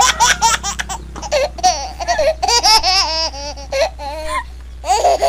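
A woman laughing in a run of short, rapid bursts, breaking off briefly about four seconds in and starting again near the end.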